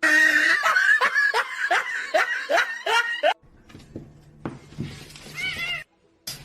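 Hearty laughter in a quick run of rising ha-ha bursts, about three a second, cut off suddenly after about three seconds. A quieter stretch follows, with a low steady hum and one short high-pitched cry.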